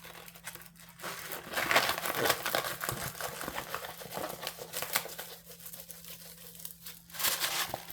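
Rolled diamond painting canvas, under its plastic cover film, being rolled backwards by hand to flatten it: crinkling and crackling. It is louder about two seconds in and again near the end.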